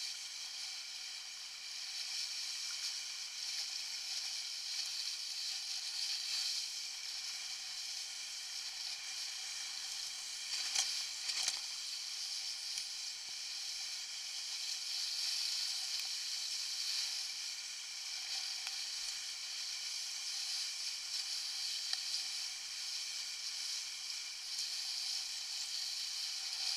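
Steady hiss of water and spray rushing past the hull of a Topper Buzz dinghy sailing fast in strong wind, briefly louder twice about eleven seconds in.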